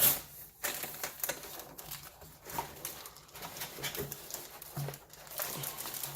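Cardboard keyboard box and its packing handled and opened: irregular rustling, scraping and light knocks.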